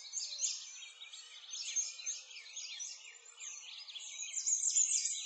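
A dense chorus of many birds chirping and singing at once, quick high chirps and trills overlapping without a break.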